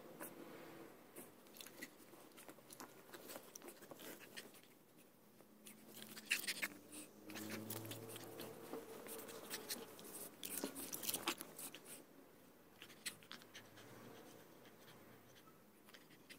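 Pug puppy playing with a fluffy plush toy on a wooden floor under a sofa: faint rustling and scuffling with many small clicks and taps, busiest and loudest in the middle.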